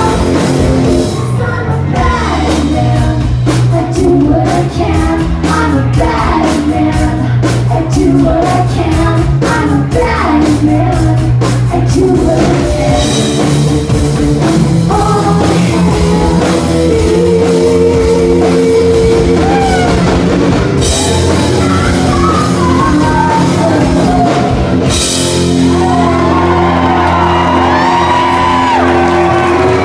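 Live rock band playing: electric guitars, bass and drums with women's voices singing, heard loud from within the crowd. Dense drum hits fill the first half, after which held chords and sung lines carry the sound.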